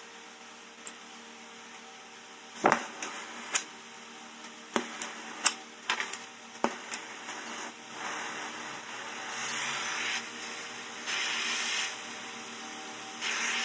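A series of sharp clicks and knocks, then an oxy-fuel torch hissing, swelling louder a few times as its flame heats a copper exhaust pipe.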